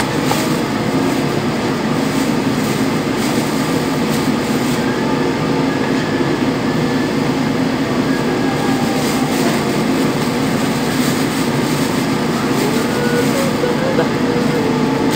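Steady loud rumbling noise with faint, scattered knocks of a cleaver on a cutting board.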